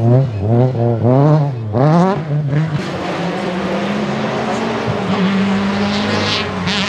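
1997 VW Golf 3 Kit Car's naturally aspirated 2.0-litre straight-four rally engine, its revs rising and falling quickly about twice a second under throttle. From about three seconds in it holds a steady note under a loud rushing noise as the car goes past.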